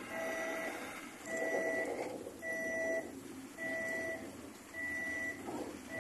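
Machinery warning beeper, like a reversing or crane-motion alarm, sounding a steady single-pitch beep about once a second, five times, over steady background noise.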